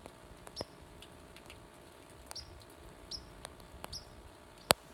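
A small bird chirping: short, high chirps repeated about once a second, with faint clicks and one sharp click near the end.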